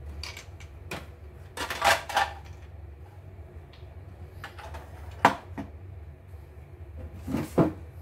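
Plastic parts of an opened embroidery machine being picked up, knocked and set down on a wooden workbench: three bursts of clattering, about two, five and seven and a half seconds in, over a steady low hum.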